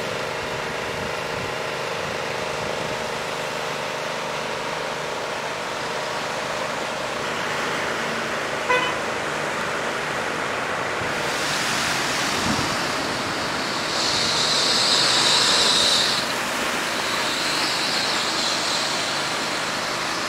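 Rain and traffic on a flooded street: a steady hiss of rain and running water with cars passing, and a car horn tooting briefly about nine seconds in. From about eleven seconds a louder rushing, splashing water sound builds, loudest a few seconds later.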